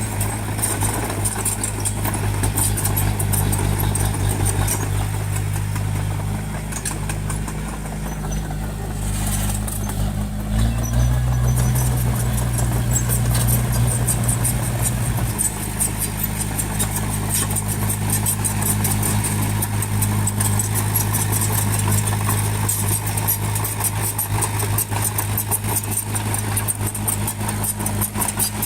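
Bulldozer's diesel engine running steadily with a constant clatter; about ten seconds in the engine note rises and grows louder for roughly five seconds, as under heavier load, then settles back.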